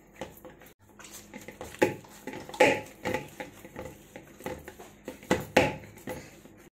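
Hands kneading stiff maize-flour dough in a stainless steel bowl: an irregular run of squashing thumps and knocks against the metal bowl, the loudest about two and a half and five and a half seconds in.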